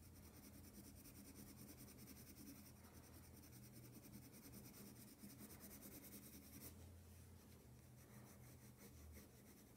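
Black colored pencil shading on thick paper: faint, rapid strokes of the lead rubbing the paper, thinning out about two-thirds of the way through.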